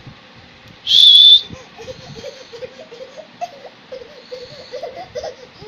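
A short, loud, high-pitched whistle-like squeal about a second in, then an infant babbling and cooing in small pitched sounds.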